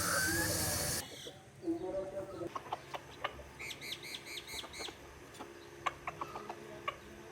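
Domestic chickens clucking, with scattered clicks and a quick run of high chirps in the middle. A loud hiss during the first second cuts off abruptly.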